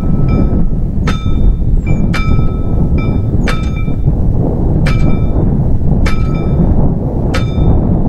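Classic Czech trefoil level-crossing warning bell striking six times at an uneven pace of roughly one stroke every second or so, each stroke ringing on briefly. Wind buffets the microphone with a steady low rumble underneath.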